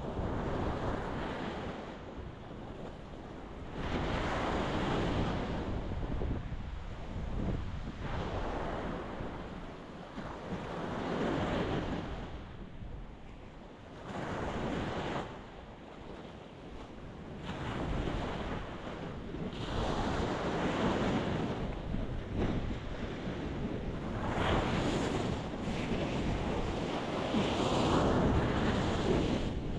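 Ocean waves breaking on a rocky shore, surging and falling back in a steady rhythm, a new swell every few seconds.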